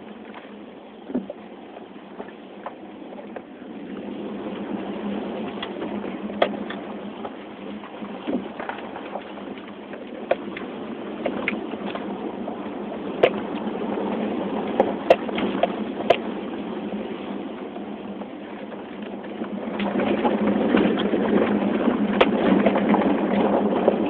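Cabin noise of a 2005 Toyota 4Runner driving a rough dirt trail: a steady rumble of engine and tyres with scattered knocks and rattles as it goes over rocks and bumps. The rumble grows louder near the end.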